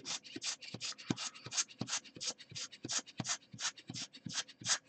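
Quick scratchy scrubbing strokes, about four a second, across an iPhone 6s logic board wetted with alcohol, as the board is cleaned after a burnt component was removed.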